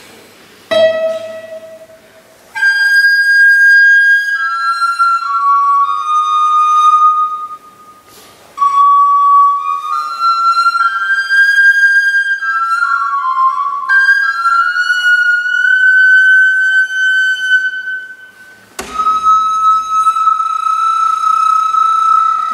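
Wooden recorder playing a slow melody of held notes that step up and down, with short breaks between phrases. Near the end a long high note is held steady.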